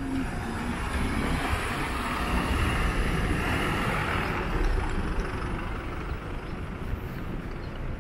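A road vehicle passing close by in street traffic. Its tyre and engine noise swells to a peak around the middle, then fades.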